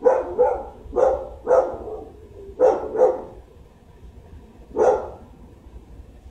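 A dog barking: seven sharp barks, mostly in pairs, the last about five seconds in.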